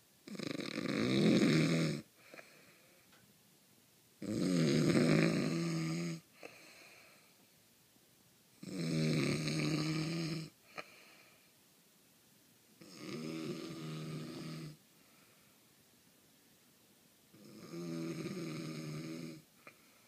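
A sleeping man snoring loudly: five long snores, each about two seconds, coming about every four seconds, so exaggerated it sounds like a cartoon.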